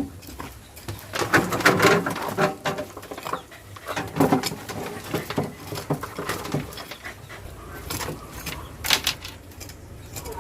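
A dog panting close by, with irregular scraping and rustling of hands digging through sandy compost soil.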